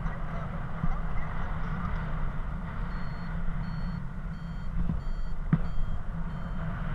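Wind rushing over the microphone in flight, with a paragliding variometer starting to beep about three seconds in: short high beeps about twice a second, the tone that signals the glider is climbing in rising air. One sharp knock about five and a half seconds in.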